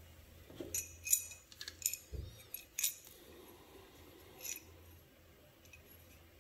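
Metal parts of a disassembled hand plane clinking and knocking lightly as they are picked up and handled on a wooden bench. There is a quick run of light clicks in the first three seconds and one more about four and a half seconds in.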